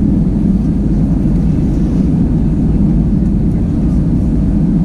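Steady low roar of an Airbus A320-200 in flight, engine and airflow noise heard from inside the passenger cabin.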